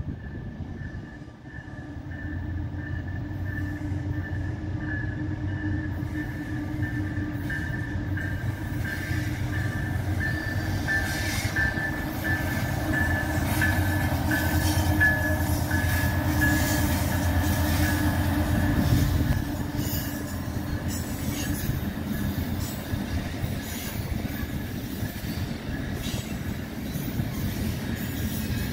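Amtrak passenger train passing, led by two Siemens Charger diesel-electric locomotives: the engine rumble builds to its loudest about two-thirds through as they go by, with a steady high-pitched whine over it that stops as they pass. After that comes the steady rolling noise of bi-level Superliner passenger cars going by.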